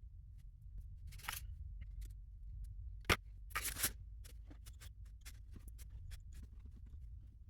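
Wire cutters snipping old terminals off wiring-harness wires, with a sharp snap about three seconds in and small clicks and scrapes from handling the wires.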